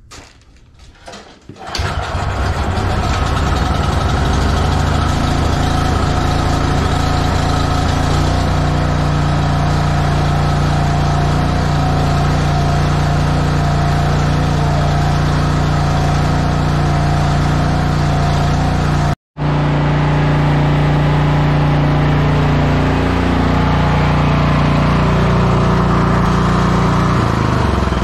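Cub Cadet 3X snowblower's 420cc single-cylinder OHV engine starting on the first pull of the recoil cord, cold after sitting six months with the choke on, then running steadily. The engine catches a little under two seconds in and its pitch shifts slightly near the end.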